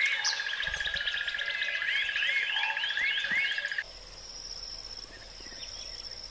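Wildlife ambience: a steady, fast-pulsing trill with many short rising-and-falling chirps over it. About four seconds in it cuts to a quieter, steady high-pitched whine like insects calling.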